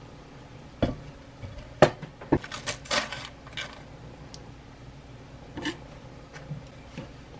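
Sharp knocks and clicks from chopsticks and an air fryer basket being handled, with aluminium foil crinkling in a burst about three seconds in, then a few lighter clicks.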